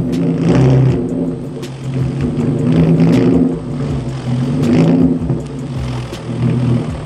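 Hyundai Genesis Coupe 3.8 V6 running through a straight-pipe exhaust with no mufflers or resonators, revving up and dropping back about three times at low speed. Sharp pops come between the revs from its pops-and-bangs tune.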